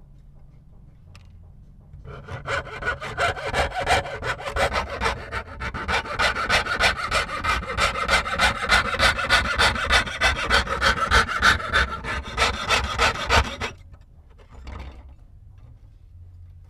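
Jeweler's piercing saw cutting through thin brass sheet, rapid steady back-and-forth strokes as the openwork leaf pattern is sawn out. It starts about two seconds in and stops abruptly a few seconds before the end.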